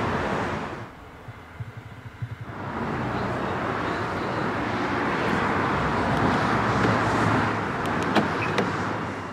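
Lamborghini Huracán LP610-4's V10 engine, fitted with the optional racing exhaust, running at idle after start-up. It goes much quieter for a couple of seconds about a second in, then comes back to a steady run.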